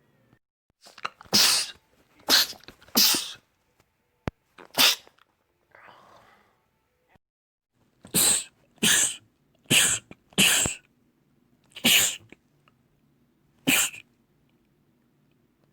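A man sneezing again and again: about ten short, sharp sneezes, several coming in quick pairs, with a pause of a few seconds in the middle.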